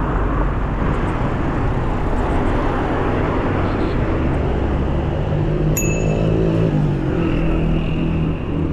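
Motor vehicle engine running close by amid steady traffic noise, with one brief metallic ping a little under six seconds in.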